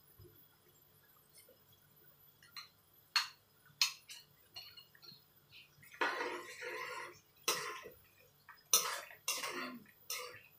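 A spoon clicking a couple of times, then knocking and scraping around a metal frying pan of soup as it is stirred, from about six seconds in.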